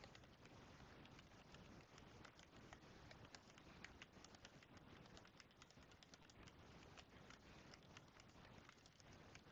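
Someone typing on a computer keyboard: faint, quick, uneven key clicks.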